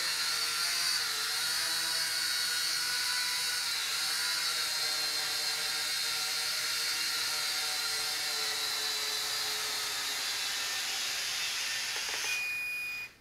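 Polaroid PL300 quadcopter's motors and propellers whining steadily as it hovers, the pitch wavering slightly with small stick corrections. Near the end a short beep sounds and the whine cuts off suddenly as the blades are stopped.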